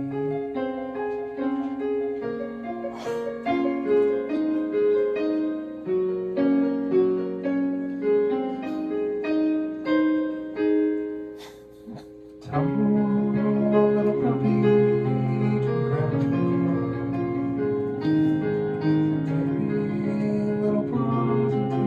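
Piano music: a melody of separate notes that stops briefly about twelve seconds in, then resumes fuller, with lower notes underneath.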